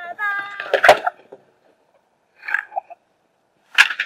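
Chickens calling: a held, wavering call in the first second that ends in a loud burst, then short separate calls about two and a half and nearly four seconds in.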